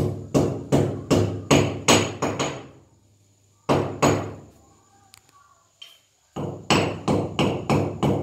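Hammer blows at the edge of a round hole in a masonry wall, shaping the opening for a kitchen exhaust fan. The strikes come about three a second, each with a short ring: a run of about eight, a single blow in the middle, then a run of about six near the end.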